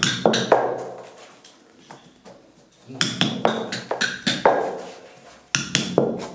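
Small hand hammer striking a metal rammer rod set in a paper firework tube, sharp ringing metallic taps in three quick runs of several strikes each. This is a worker packing the tube by hand for a ground chakra.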